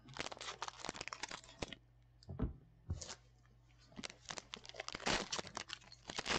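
Foil wrapper of a Panini Prizm trading-card pack being torn open and crinkled by hand: a burst of crackling in the first second and a half, two soft knocks, then more crinkling from about four seconds in.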